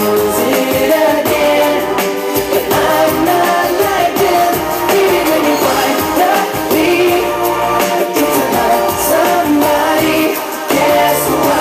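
Loud pop song playing, with sung vocals over a steady beat, dipping briefly near the end before it comes back in.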